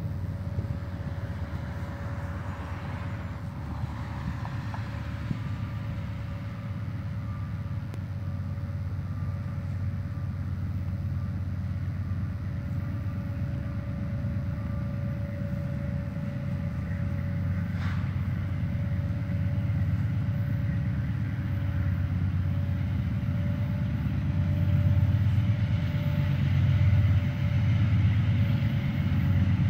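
Approaching freight train led by a Canadian National diesel locomotive, heard from a distance: a low rumble that slowly grows louder, with a faint steady hum above it.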